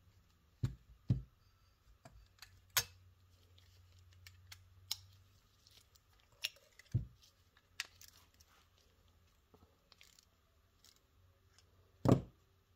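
Scattered light clicks and knocks of hand tools and carburetor parts being handled on a workbench, with a louder knock near the end.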